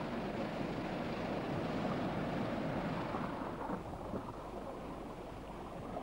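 Sea waves and wind at the water's surface: a steady rushing noise.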